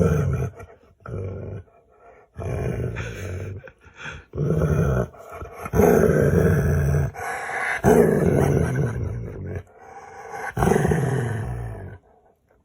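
A dog making a run of its drawn-out vocal "funny noises", about six long calls of a second or two each, several sliding down in pitch, with short pauses between them.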